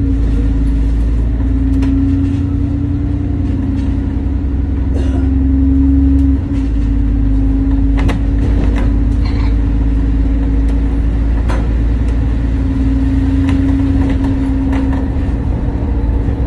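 London double-decker bus running along the road, heard from on board: a steady low engine and road rumble with a constant hum, and a few sharp rattles or knocks from the bus body. The rumble dips briefly about six seconds in.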